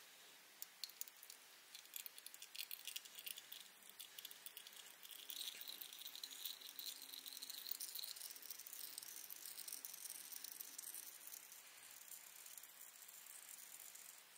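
Transfer-case flush fluid draining in a thin trickle from the drain hole into a plastic measuring pitcher: faint rapid pattering drips for the first few seconds, then a steadier trickle from about five seconds in that slowly eases off.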